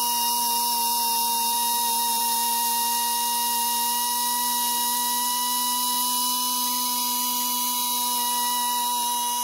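Handheld high-speed rotary tool running at a steady, even whine while grinding the pin off a black motorcycle handlebar part, because the new bars have no hole for that pin.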